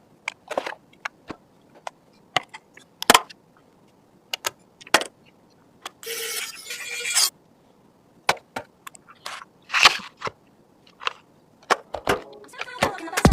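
Computer parts being handled and fitted by hand: scattered sharp clicks and taps of plastic and metal parts, with a rustling scrape lasting about a second around the middle and a quick run of clicks near the end.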